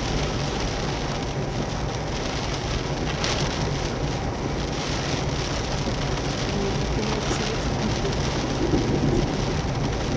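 Heavy downpour pelting the car's windshield and body, heard from inside the cabin as a dense, steady hiss.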